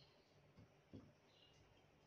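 Near silence: faint room tone with a soft, low knock about a second in.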